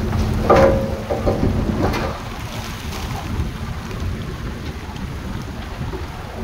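Heavy earthmoving machinery running with a deep rumble. A steady drone and three or four sharp metallic clanks come in the first two seconds, then the drone falls away and the rumble settles lower.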